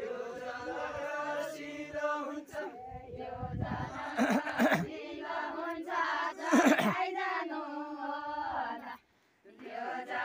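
A group of voices chanting a Nepali Deuda folk song together, unaccompanied, in long held lines. Two brief loud bursts of noise cut across it near the middle, and the singing breaks off for a moment near the end.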